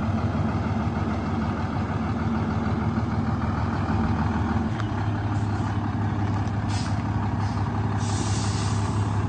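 Sinotruk HOWO 371 tractor's six-cylinder diesel idling steadily, its note shifting slightly lower about halfway through. Near the end come short hisses of air, the last lasting about a second, like air-brake system releases.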